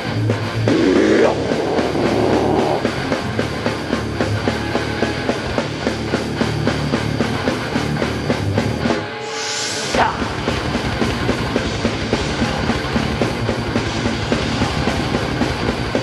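Live rock band playing at full volume: electric guitars, bass and drums. About nine seconds in the low end drops out briefly, and a high sound falls in pitch before the full band comes back in.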